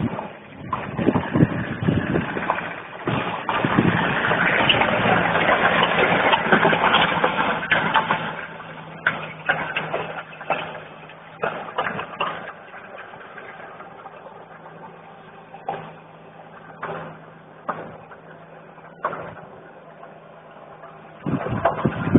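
A Rastrojero pickup truck running and towing a tyre on a pallet over gravelly dirt: a loud rushing scrape as it passes close a few seconds in, then a steady engine hum as it moves off, with scattered knocks.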